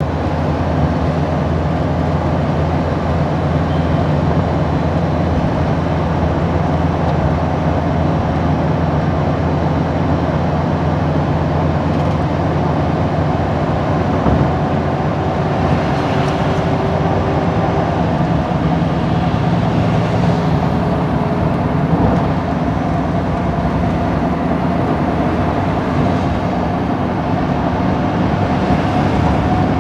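Steady running noise of a road vehicle driving across a bridge: a low engine hum and tyre rumble, with a few brief swells of rushing noise.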